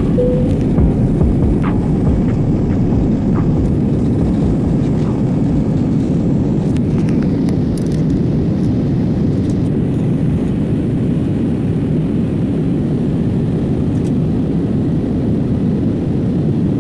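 Jet airliner cabin noise during the climb after takeoff: a steady low roar of engines and airflow heard from inside the cabin.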